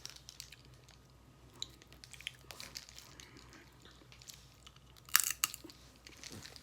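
Cooked Dungeness crab being eaten: scattered cracks and crunches of shell with chewing, and a louder cluster of cracks about five seconds in.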